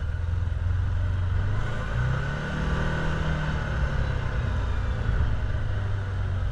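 Can-Am side-by-side's engine running at low speed, heard from the driver's seat, revving up briefly about two seconds in and settling back a couple of seconds later.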